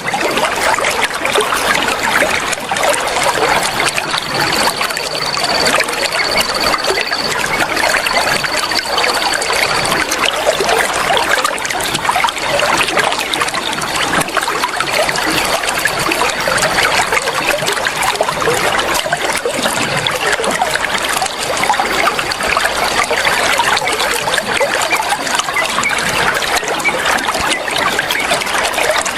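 Flowing water trickling and splashing steadily, a continuous dense babble of small drops and ripples. A faint, thin, high steady tone sits above the water for several seconds in the first third.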